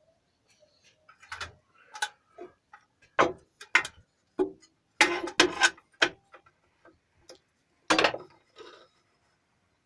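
A run of irregular sharp knocks and clicks, a dozen or so, with short quiet gaps between and the loudest cluster in the middle.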